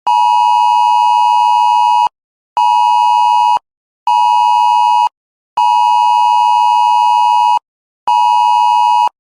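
Emergency Alert System two-tone attention signal sounding in loud on-off pulses with half-second gaps: long, short, short, long, short.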